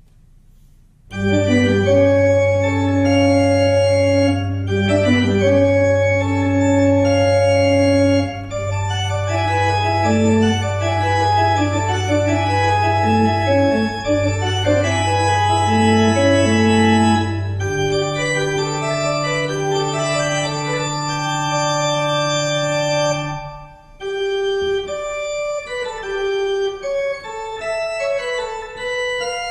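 Church pipe organ playing a postlude at the end of the service. It comes in about a second in with full sustained chords over long held bass pedal notes. The pedal note moves higher partway through, and after a brief break a lighter passage without the deep bass follows near the end.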